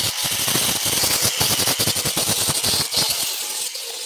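Angle grinder with an abrasive disc grinding paint and rust off the steel body of a Mahindra Bolero around the door: a loud, steady grinding hiss over the motor's running tone, with rapid irregular chattering as the disc bites the metal. The chattering eases about three seconds in while the grinding goes on.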